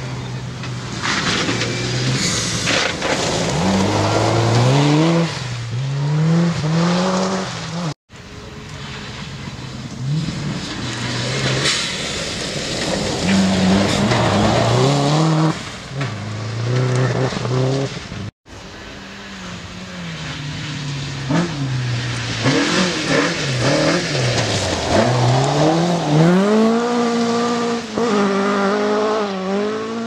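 Rally cars passing one after another on a loose gravel forest stage, with cut breaks between passes. Each engine revs hard, its note climbing and dropping repeatedly through quick gear changes over the hiss of tyres and thrown gravel. In the middle pass the car is a Subaru Impreza with a turbocharged flat-four.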